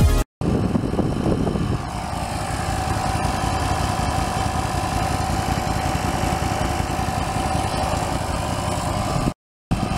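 Small portable tire compressor running, a steady buzzing hum with fast pulsing as it pumps air into a small tractor tire. It comes in just after a cut, settles into an even drone about two seconds in, and breaks off briefly near the end.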